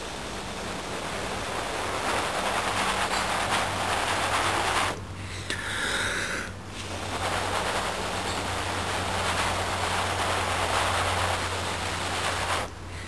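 A person blowing long, steady breaths onto a smouldering ember under a tuft of sheep's wool to coax it into flame. There are two long blows of about five and six seconds each, with a short pause for breath between them.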